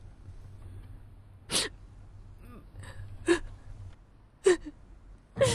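A woman's short, sharp gasping breaths, three of them a second or more apart, as she fights back tears.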